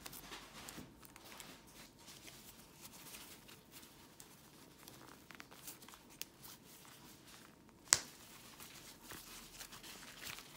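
Faint rustling and crinkling of a clear plastic sticker packet and a folded fabric bag being handled and unfolded by hand, with one sharp click about eight seconds in.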